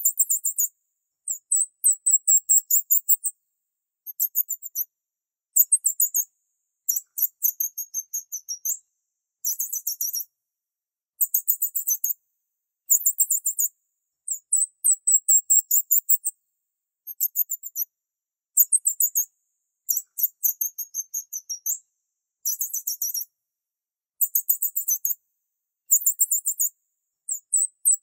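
High-pitched, rapidly pulsed chirping in bursts of about a second, repeated roughly fifteen times with short gaps between. None of it is in the low range of pigeon cooing.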